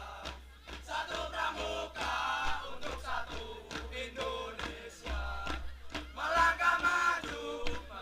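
Music with singing or chanting voices over a regular beat, mixed with crowd shouting.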